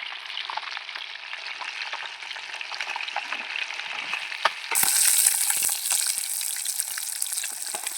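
Marinated fish pieces frying in hot oil in a pan: a steady sizzle with scattered light knocks. About halfway through, the sizzle suddenly gets louder and hissier.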